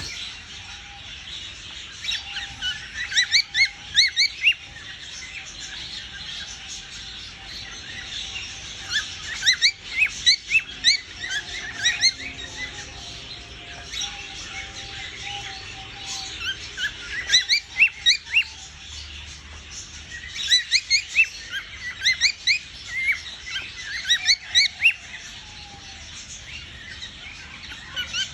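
Cockatiel chirping in repeated bursts of quick, rising high chirps, several bursts a few seconds apart, over a faint, wavering hum during the first half.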